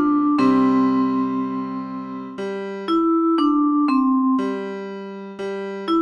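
Santa-themed mobile ringtone: a simple melody played on an electric piano sound, one note at a time, with a note held for about two seconds near the start, then quicker notes about every half second.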